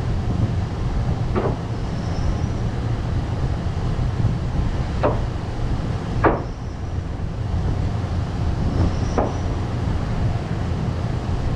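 Sawmill engine running steadily at a low rumble, with a few sharp wooden knocks of cherry boards being laid onto a lumber stack.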